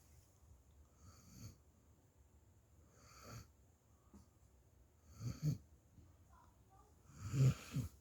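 A puppy snoring in its sleep: four snoring breaths about two seconds apart, the last two louder and deeper, the loudest near the end.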